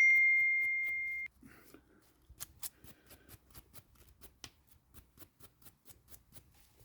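A metal mower-deck part rings out with a clear fading tone for over a second, then is stopped short. A steady run of quick light clicks and scrapes follows, about three to five a second, as the part is rubbed down by hand.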